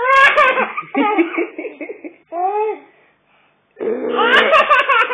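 Baby laughing hard, in a long fit at the start and another near the end with a short rising-and-falling squeal between.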